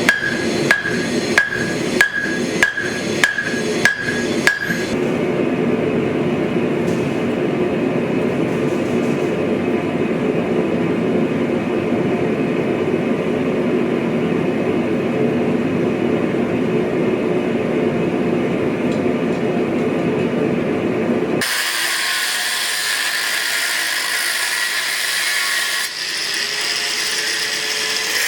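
Hammer blows on hot steel at the anvil, about eight evenly spaced ringing strikes, a little under two a second. They stop after about four and a half seconds and a steady rushing noise takes over. Around three-quarters of the way through it gives way to a higher, hissier steady noise.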